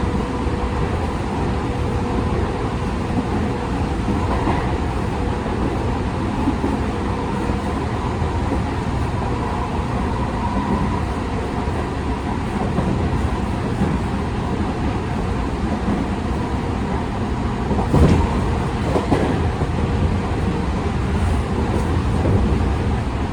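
Tokyu 5000 series electric train with Hitachi IGBT-VVVF drive running at steady speed, heard inside the motor car: continuous rumble of wheels on rail with a faint steady electrical tone. Two sharp wheel knocks over rail joints come near the end.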